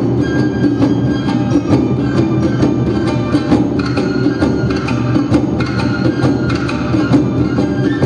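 Awa Odori hayashi music: shamisen and bamboo flute melody over a brisk, even beat of kane gong and taiko drums accompanying the dance.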